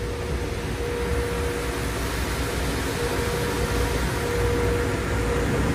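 Automatic car wash heard from inside the car: water spraying and streaming over the windshield makes a steady rushing hiss over a low rumble, with a steady hum from the machinery, growing slightly louder.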